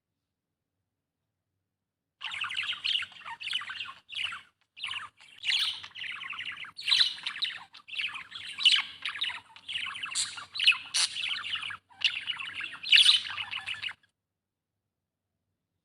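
Budgerigar chattering and warbling: a dense, fast run of chirps and squawky notes that starts about two seconds in and cuts off suddenly a little before the end.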